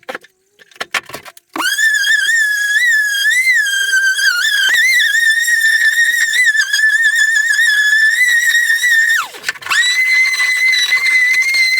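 Electric sander motor whining as it spins up, working with a wavering pitch, then spinning down about nine seconds in. It starts again a moment later and runs at a steady pitch.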